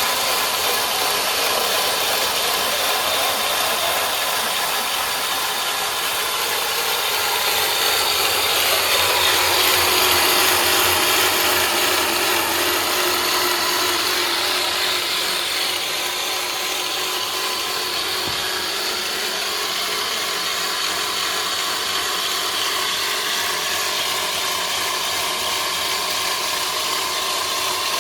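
Woodworking machinery running steadily through wood, a continuous mechanical noise with faint tones that drift slowly in pitch, a little louder about a third of the way in.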